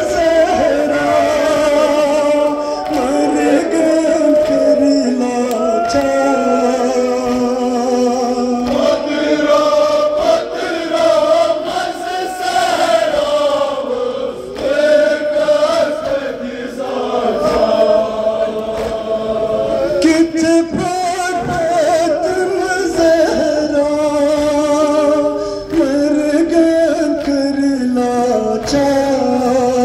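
Men's voices chanting a Kashmiri noha, a sung mourning lament, in long held lines that rise and fall in pitch.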